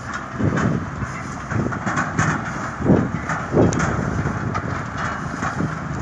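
Tractor-drawn Grimme SE 260 potato harvester digging and running, a steady mechanical clatter with irregular low thumps, the loudest about three and three and a half seconds in.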